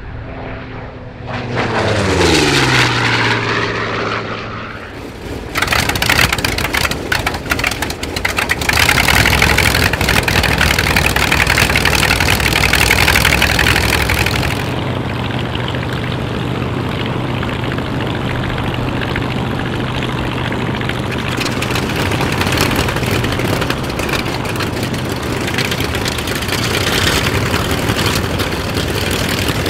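A propeller plane passes with a falling engine note in the first few seconds. Then Grumman F8F-2 Bearcats' Pratt & Whitney R-2800 radial engines run on the ground, loudest for a stretch and then settling to a steady, rough idle.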